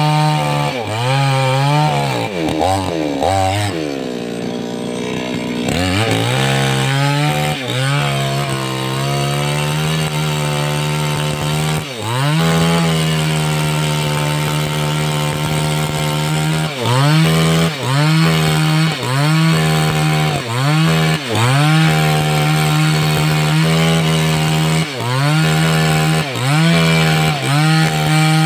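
Two-stroke 588X chainsaw running at high revs while cutting through a sengon log. Its pitch dips and climbs again over and over as it bogs under load and recovers, with a longer, deeper drop a few seconds in and quick dips about once a second near the end.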